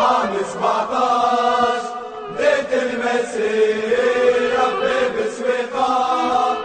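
Football ultras chanting a terrace song together, in long sung phrases with a short break about two seconds in.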